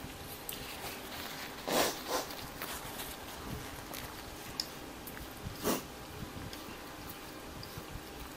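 A few sharp sniffs, the loudest about two seconds in and another near six seconds: a runny nose from eating very spicy ramen.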